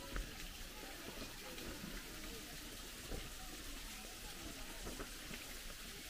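Faint distant voices, wavering and broken, over a steady hiss of background noise.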